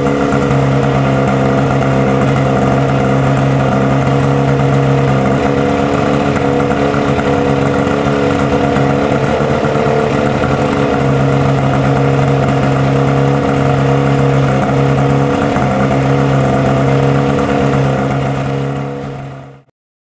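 Fire pump engine running steadily at a constant speed while water is drawn through a floating suction strainer. The sound fades out near the end.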